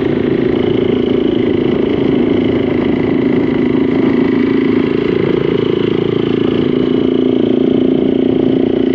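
A motor vehicle's engine running steadily on the move, a constant drone with a slight upward shift in pitch about halfway through.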